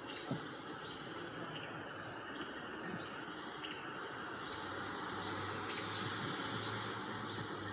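Steady outdoor background hiss with a few faint, short high chirps about every two seconds. A low steady hum comes in about halfway through.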